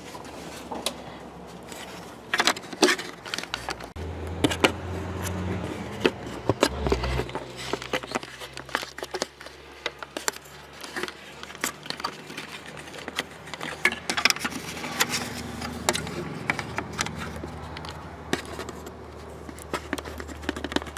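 Plastic interior trim and its clips being worked loose by hand on a minivan door: irregular clicks, knocks and scrapes throughout. A low steady hum comes in about four seconds in.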